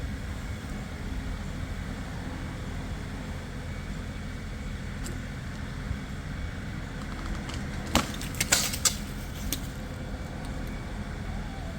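LS farm tractor's diesel engine running steadily under load, winching a log uphill by cable through a snatch block. About eight seconds in come a sharp snap and several metallic clanks: the tie strap breaking and the rigging whipping loose.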